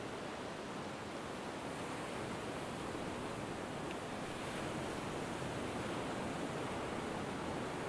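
Steady wash of Baltic Sea surf breaking on a sandy beach, an even rushing noise that swells slightly partway through.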